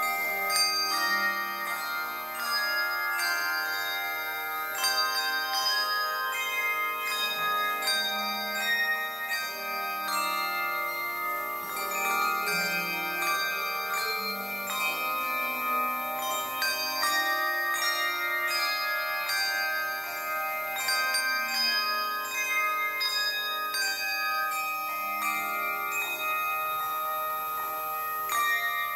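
Handbell choir playing a piece of music: many tuned bells struck one after another and in chords, each note ringing on.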